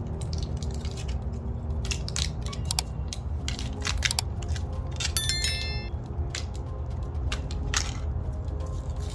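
Scattered clicks and crunches of a screwdriver working at a punctured lithium-ion phone battery's pouch and layered inside, with a short metallic ring about five seconds in, over a steady low hum.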